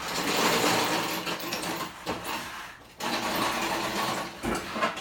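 Steel engine hoist being pushed across a concrete floor, its casters rolling and rattling in two pushes, the second starting about three seconds in.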